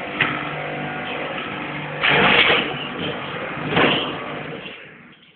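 Pressure washer running with a steady motor hum, its water spray hissing louder in two surges about two and nearly four seconds in, then dying away near the end.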